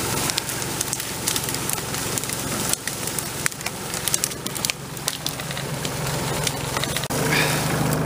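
Footsteps crunching through dry fallen leaves, with a tractor engine running steadily in the background. The engine grows louder near the end.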